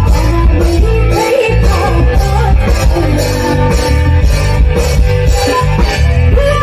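Live band music with a woman singing into a microphone over loudspeakers: a Bodo song with drums and keyboard, a heavy low end and a steady beat.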